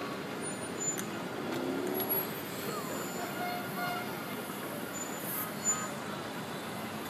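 Steady city street traffic with a couple of short car horn toots about three and a half seconds in, and a few brief sharp sounds.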